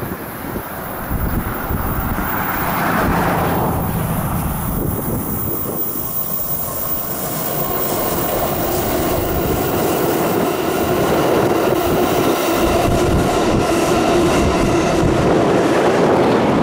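Train passing close by, a steady rolling rumble that grows louder through the second half. Several steady ringing tones join in about halfway.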